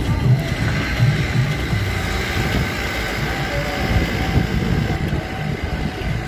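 Steady low rumble of a vehicle's engine and road noise, running continuously.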